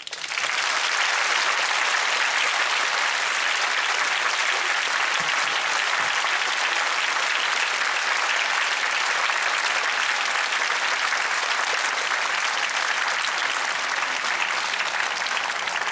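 Audience applauding: dense, even clapping that breaks out at once and holds steady throughout.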